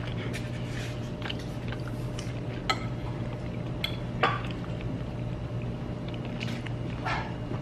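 Forks and cutlery clinking and scraping on dinner plates as people eat, with a few sharp clinks standing out, over a steady low hum.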